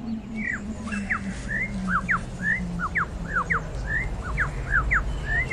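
Lyrebird calling: a quick run of short, sweeping chirps, some rising and some falling, about four a second, over a low held tone.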